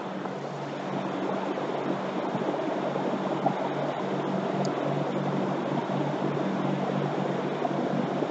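Bosch A/C recovery and recharge machine running: a steady motor hum with a hiss over it.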